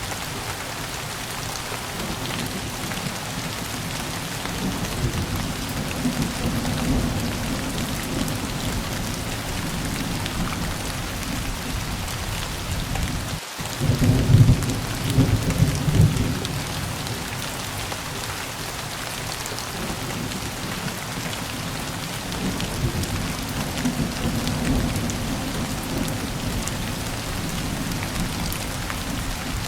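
Steady rain falling, with low thunder rolling underneath. There is a brief break about 13 seconds in, then a louder roll of thunder.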